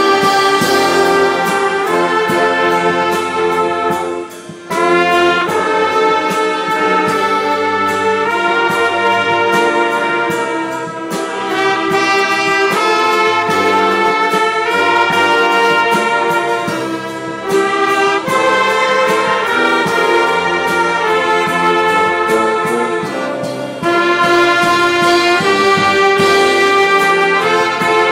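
A full orchestra of strings, clarinets and a large brass section plays sustained chords, with trumpets and trombones loudest. It breaks off briefly about four seconds in, then plays on.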